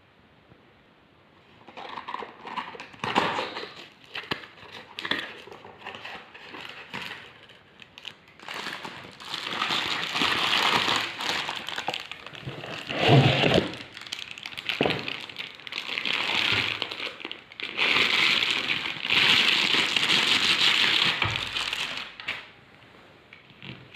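Crinkling and rustling with many irregular clicks and knocks, in denser stretches of steady rustling.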